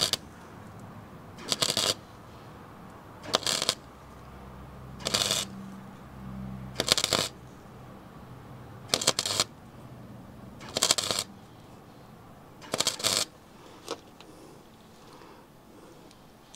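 Gasless flux-core wire welder stitching the thin steel rocker panel of a car body in short arc bursts: about eight crackling bursts of roughly half a second each, spaced nearly two seconds apart, stopping about 13 seconds in. The flux-core arc keeps burning through the thin body steel.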